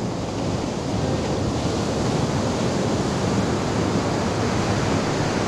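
Ocean surf breaking and washing up a sand beach: a steady rush of water that grows a little louder about a second in.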